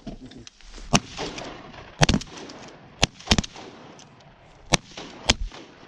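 Duck hunters' shotguns firing a ragged volley at ducks over the decoys: about seven shots in five seconds, two of them almost on top of each other.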